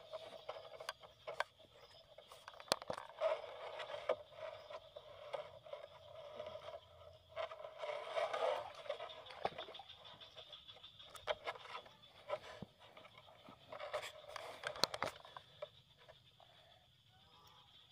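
Grass rustling and scraping, with many scattered sharp clicks and light knocks as someone moves and handles things in the grass. A faint steady hum of outdoor background noise runs underneath.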